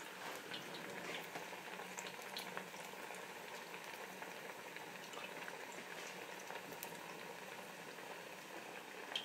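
Green plantain pieces frying in a pot of hot oil, a steady bubbling hiss scattered with faint crackles. This is the first slow fry that cooks the plantain through before it is smashed into patacones.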